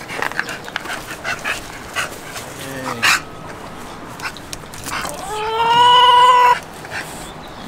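American Bully dog whining and yipping: a few short yelps, then one loud, slightly rising whine a little over a second long about five seconds in.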